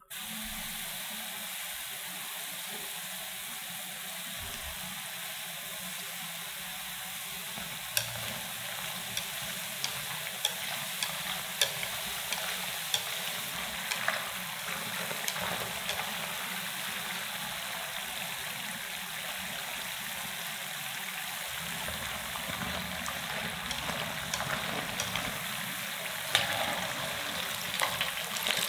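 Potato-and-corn-starch sticks deep-frying in hot oil: a steady sizzle, with scattered sharp pops and crackles from about a third of the way in and more of them near the end.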